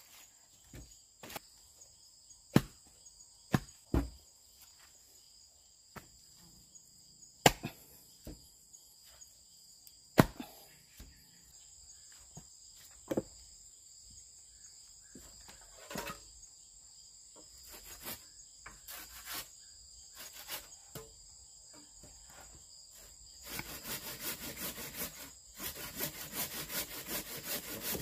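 Pieces of wood knocking and clattering now and then as they are handled, then, about four seconds before the end, rapid even strokes of a saw cutting through wood. Insects shrill steadily in the background.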